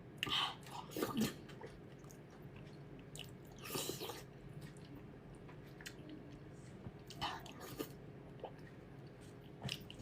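A person chewing and biting food, with moist mouth sounds in three short bouts: about a second in, around four seconds in and around seven seconds in.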